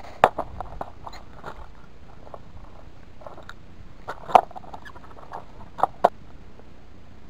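Close scratchy rustling and handling noise with a few sharp clicks or knocks: one just after the start, the loudest a little over four seconds in, and two close together near six seconds.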